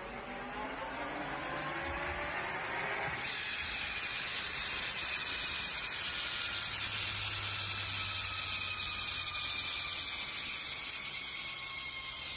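Belt-driven bicycle drivetrain and rear wheel spinning on a stand: a steady whir and hiss with faint whining tones that drift slowly in pitch, rising at first and then slowly falling.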